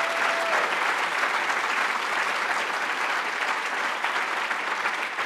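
A large audience applauding, a dense steady clapping that eases slightly toward the end.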